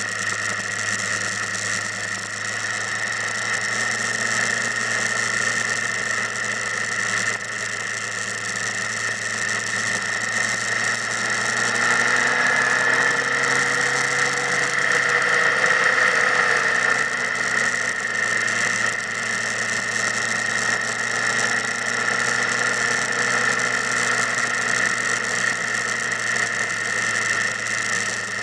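Motorcycle engine running steadily. Its note rises and falls once near the middle, where it is louder.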